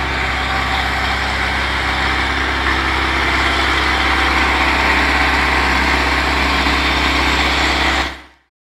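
Kubota compact tractor's diesel engine running steadily with a deep hum while the tractor works a rotary tiller through the soil. The sound fades out near the end.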